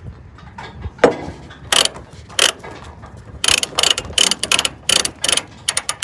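Ratchet binder on a load-securing chain being cranked tight, its pawl clicking: a few spaced clicks, then a quicker run of about four clicks a second.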